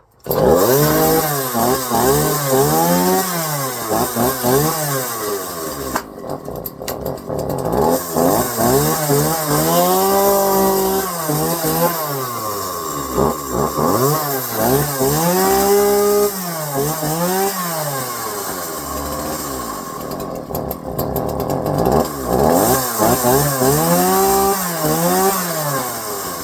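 Dolmar PS34 two-stroke chainsaw running and being revved up and down again and again, with a couple of short stretches at a lower, steadier speed. The saw does not like to idle and loads up on fuel, which the owner takes to mean it needs carburetor work.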